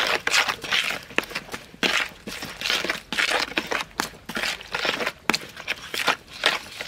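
Hand squeezing and mashing chopped chilies and garlic in liquid in a plastic bowl: a quick run of wet squishing and crunching with small sharp clicks.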